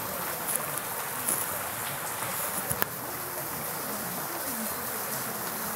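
Steady rush of river water flowing over rocks, with a few sharp small clicks in the first half.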